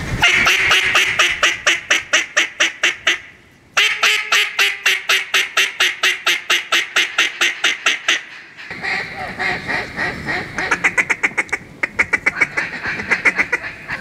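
Hand-blown duck call giving long, rapid strings of quacks, about eight a second, in a fast chatter meant to draw in ducks. A brief pause comes about three and a half seconds in. A second long string stops about eight seconds in, and shorter strings of calling follow near the end.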